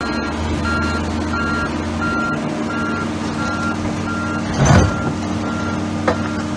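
Diesel excavator engine running steadily with a backup alarm beeping about one and a half times a second. A brief loud burst of noise comes a little past the middle, and a sharp click near the end.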